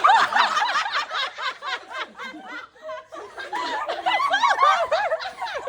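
Several girls laughing and giggling together, in quick repeated pulses, with a short lull about halfway through before the laughing picks up again.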